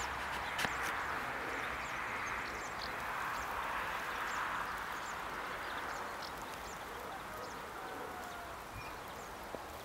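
Wetland outdoor ambience: a steady chorus of animal calls with many short, high, falling bird chirps scattered through it, growing slightly fainter toward the end.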